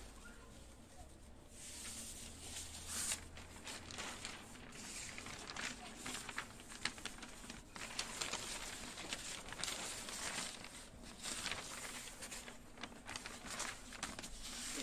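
Sheet of red Spring Festival couplet paper rustling and crinkling as it is handled and laid flat, with many small clicks and crackles.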